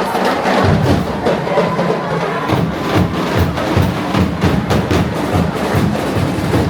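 Loud music carried by a steady, driving drumbeat, with sharp percussion strikes.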